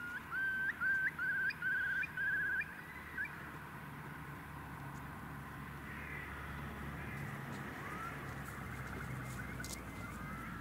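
A bird calling: a run of about six short notes in the first three seconds, each rising and then breaking into a quick warbling trill, with fainter calls later, over a steady low hum.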